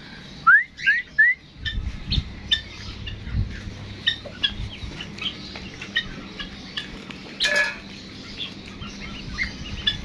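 Pet birds chirping and tweeting: three loud rising peeps in quick succession under a second in, then a steady scatter of small chirps, with one brief harsh squawk past the middle.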